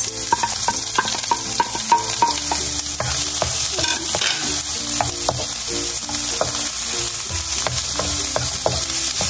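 Chopped onion and garlic sizzling in hot oil in a wok, stirred with a wooden spatula that scrapes and taps against the pan again and again. This is the sauté of the garlic-and-onion base at the start of the dish.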